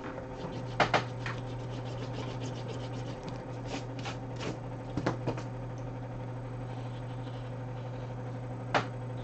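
A steady low electrical hum, with a few scattered light taps and clicks: a pair about a second in, a handful around four to five seconds, and two near the end.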